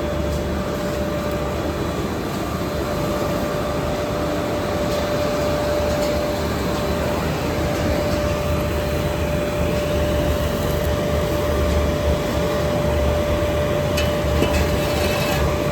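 Continuous carbonization furnace plant running steadily: a low machine rumble with a constant mid-pitched whine over it, and a few faint ticks near the end.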